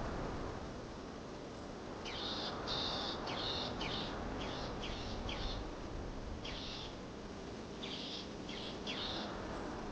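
A bird calling in quick series of short, high chirps, each with a brief downward flick. The calls come in runs of several, over a steady background hiss.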